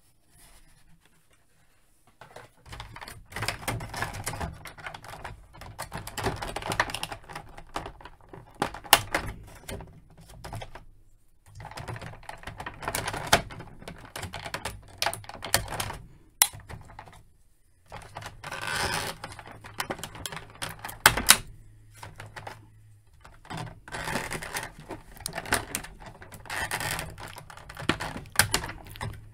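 Clear plastic blister tray crinkling and crackling with irregular clicks as an action figure is handled and worked free of it and its ties. The sound comes in bursts with short pauses.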